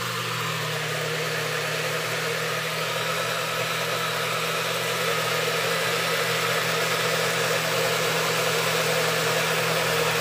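NutriBullet blender motor running steadily, blending guavas with water. It is a constant hum at a fixed pitch with a rushing whir, getting slightly louder as it goes.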